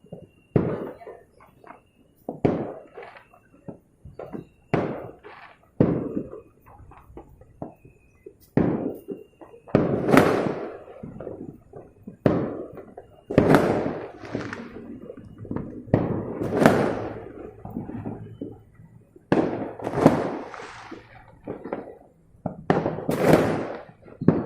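Fireworks exploding in quick, irregular succession: a steady run of booms and bangs, each trailing off in an echo.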